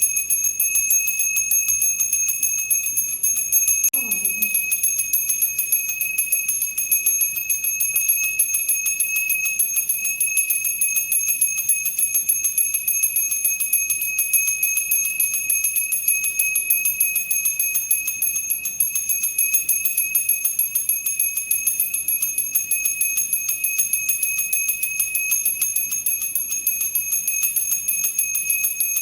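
Hindu temple bell rung continuously with rapid repeated strikes, several a second, over a steady high ringing tone.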